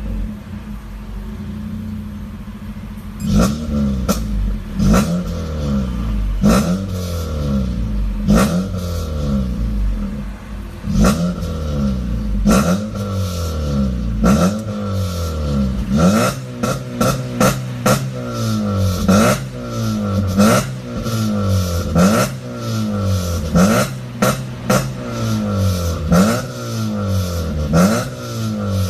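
9th-generation Honda Civic engine through an HKS Legal muffler, idling briefly and then, from about three seconds in, revved in quick repeated throttle blips. The pitch sweeps up and falls back about once every second or so, and each blip starts sharply.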